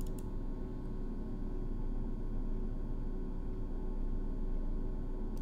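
Steady electrical hum and hiss of room tone, with a faint click just after the start and a sharp mouse click at the very end.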